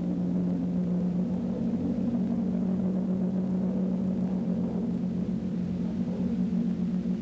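Musical accompaniment to a silent film: one low note held steadily as a drone, with no melody over it.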